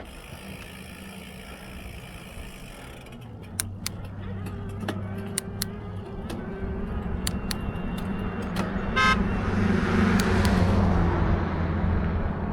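Road traffic: a motor vehicle's engine and tyres growing louder as it passes close, loudest about ten seconds in. A brief tooting beep sounds about nine seconds in, and sharp clicks come and go before it.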